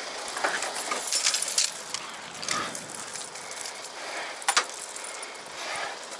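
Steel snow chains clinking and rattling as they are handled and refitted on a van's wheel: a cluster of clinks in the first two seconds, another about midway, and a sharp clink about four and a half seconds in.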